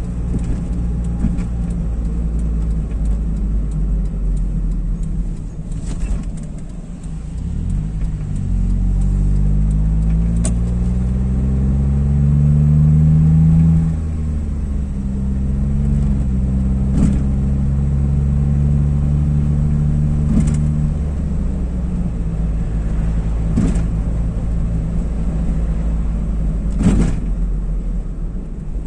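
Car engine and road rumble heard from inside the cabin while driving. About eight seconds in the engine note rises in pitch as the car accelerates, drops sharply about fourteen seconds in, then holds steady. A few short knocks are heard along the way.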